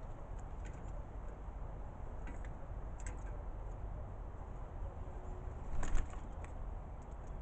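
A brief flutter of bird wings, a cluster of sharp flaps about six seconds in, over a steady low rumble with a few scattered short clicks.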